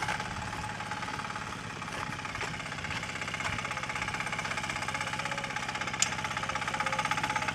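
A Kentavr walk-behind tractor's engine running with a steady, rapid putter, growing louder near the end. A single sharp click comes about six seconds in.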